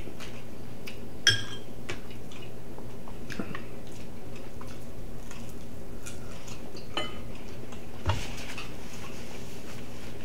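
Tableware clinking during a meal: one sharp ringing clink about a second in, then a few lighter clicks and taps, over a steady low hum.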